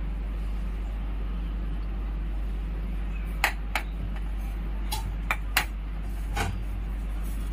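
A wok of mustard oil heating on a gas stove: a steady low hum, then about six sharp clicks and pops in the second half.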